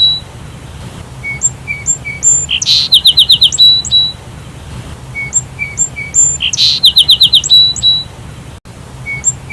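Sparrow calling: a phrase of short chirps, then a quick run of about five rapid notes, repeating about every four seconds in near-identical form, as a looped recording does. There is a brief cut in the sound near the end.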